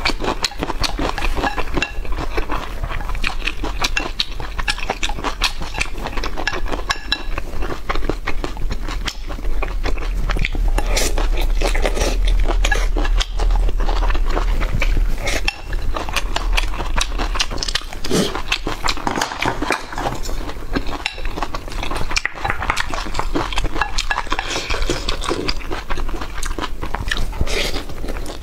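Close-miked eating of fatty braised pork and rice: continuous wet chewing and smacking, with utensils clinking against a bowl.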